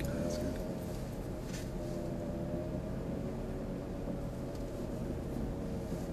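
Car driven slowly, heard from inside the cabin: a steady low engine and road hum with a faint whine running over it.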